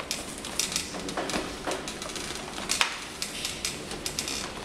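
Hard plastic Stormtrooper armour plates clicking and knocking lightly as hands fit and adjust them. The taps come irregularly, with one sharper knock near three seconds in.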